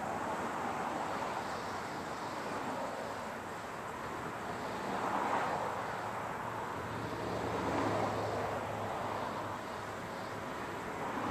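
Distant engine noise, a steady rush with a faint low hum, swelling twice as it passes.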